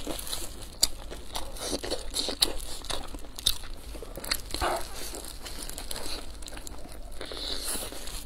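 Crisp pan-fried stuffed flatbreads (xianbing) being torn open by hand and chewed: irregular crunches and crackles of the crust, mixed with the crinkle of plastic food-handling gloves.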